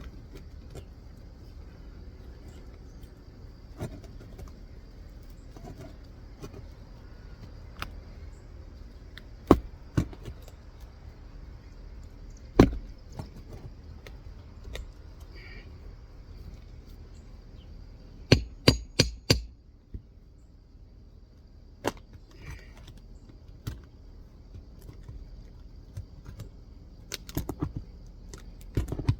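Sharp metal-on-metal knocks at irregular intervals, with a quick run of about five strikes just past the middle and another cluster near the end: a hammer striking a roof snake (shingle nail remover) hooked under a three-tab asphalt shingle to pull its nails.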